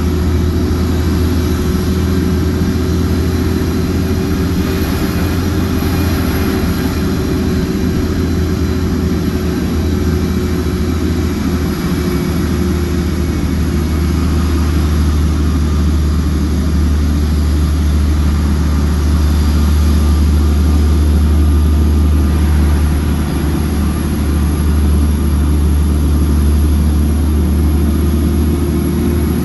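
Shacman F3000 dump truck's diesel engine running steadily while the truck drives along, heard from inside the cab with road noise: a steady low drone with a faint tone above it.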